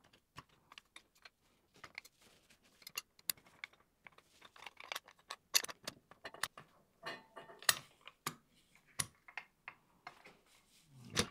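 Irregular clicks, taps and light rattles of a steel plate and small metal parts being handled and fitted into the red plastic head of a parallel jaw clamp during reassembly. The clicks come more often and louder from about halfway.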